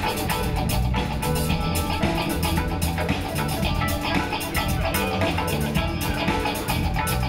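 Band music with electric guitar and a drum kit playing steadily.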